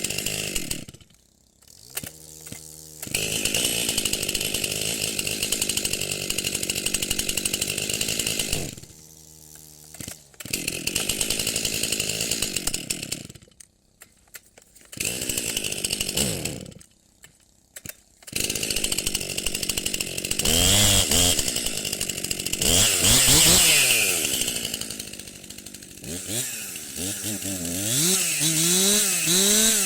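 Chainsaw run hard in repeated spells of several seconds, each time dropping back to a low idle. Over the last several seconds it is revved up and down again and again, the pitch rising and falling.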